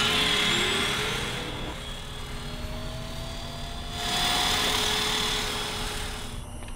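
Robot vacuum whirring: a steady mechanical drone with a slowly rising whine over the first few seconds, swelling again a little past the middle.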